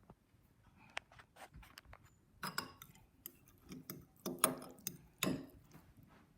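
Irregular light clicks and knocks, with a few louder clustered handling sounds in the second half.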